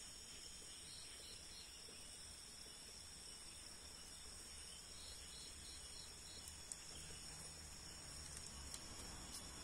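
Crickets and other night insects chirring steadily and faintly, with two short runs of quick repeated chirps, one about a second in and one about five seconds in.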